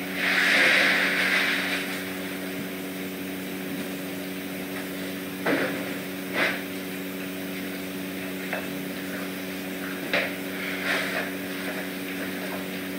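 Kittens eating from food bowls: a few light clinks against the bowls over a steady low electrical hum, with a short rustle at the start.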